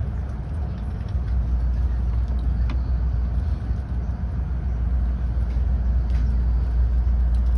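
Tokaido Shinkansen train running at speed, heard inside the passenger car as a steady low rumble that grows slightly louder about a second in.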